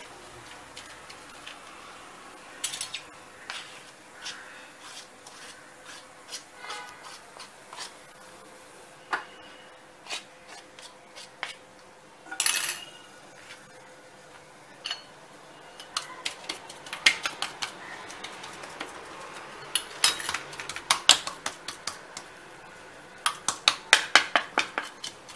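A steel spoon clinking and scraping on a steel tray as thick burfi mixture is pressed and patted flat. The clinks are scattered, with one louder clang about halfway and a quick run of taps near the end.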